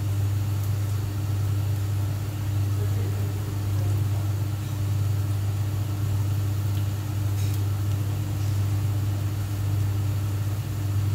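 Kitchen cooker hood's extractor fan running with a steady low hum.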